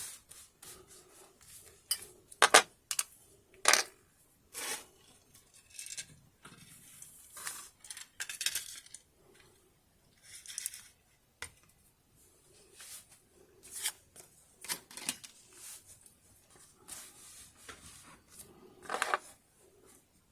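Irregular metal clicks, clinks and short scrapes of an Abus 88/40 disc detainer padlock and small metal tools being handled, with sharper knocks about two and a half, nearly four, and nineteen seconds in.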